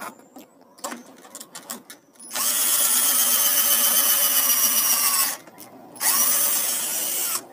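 12-volt cordless drill boring a pocket hole in wood through a pocket-hole jig. The motor runs under load for about three seconds, stops briefly, then runs again for about a second and a half.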